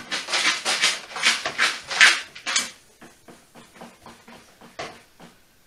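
A utensil stirring and scraping food in a frying pan: a quick run of loud scraping strokes for about three seconds, then lighter taps and clicks against the pan.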